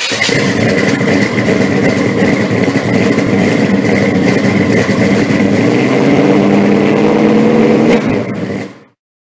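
Loud car engine running, with a steady high whine above it, fading out about a second before the end.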